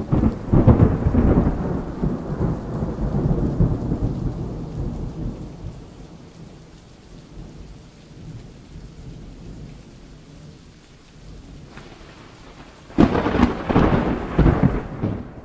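Thunderstorm: a loud rumble of thunder at the start slowly dies away over several seconds into steady rain, then a second sudden clap of thunder comes near the end.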